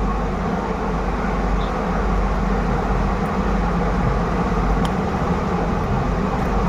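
Steady background rumble with a low hum, with one faint tick about five seconds in.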